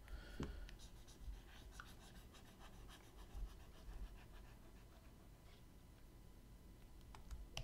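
Faint scratching of a pen stylus drawing across a graphics tablet, with a few soft taps and a small click near the end.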